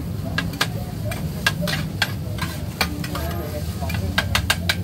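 Two metal spatulas clacking and scraping against a wide, shallow frying pan as noodles are tossed and stir-fried, over a steady sizzle. The clacks come irregularly, with a quick run of them near the end, and a steady low rumble sits underneath.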